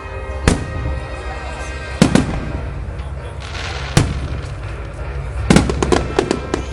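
Aerial fireworks shells bursting overhead: single loud bangs about half a second, two and four seconds in, then a quick volley of several bangs near the end, some followed by crackling hiss. Background music and crowd voices continue underneath.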